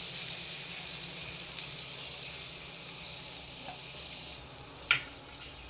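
Butter-coated bread slices sizzling on a hot griddle pan. The sizzle is steady and eases a little after about four seconds, with one sharp tap near the end.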